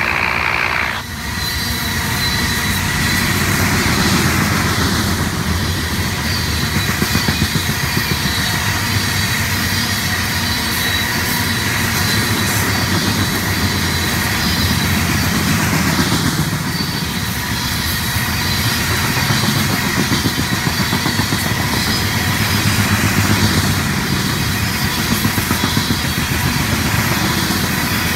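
Loaded covered hopper cars of a grain train rolling past: a steady rumble of steel wheels on the rails, with a fast, continuous clicking as the wheels run over the track.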